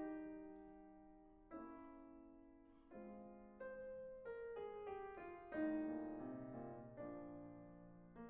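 Background piano music: slow chords struck about every second or so and left to fade, with a run of quicker notes in the second half.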